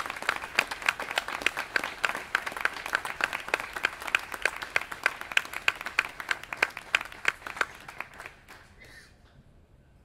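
Audience applauding, with some single claps loud and close at hand standing out of the general clapping. The applause thins out and dies away about eight seconds in.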